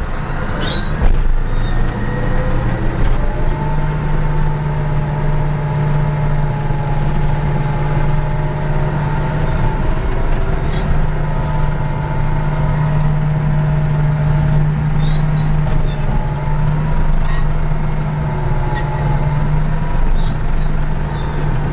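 Caterpillar D9 bulldozer's diesel engine running steadily under load as the dozer travels in second gear, a constant low drone that rises slightly in pitch a couple of seconds in.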